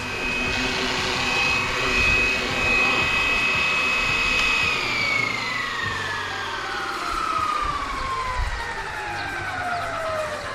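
Flywing BO 105 RC helicopter's electric motor and rotors whining at a steady pitch, then spooling down after landing, the whine falling steadily in pitch from about halfway through.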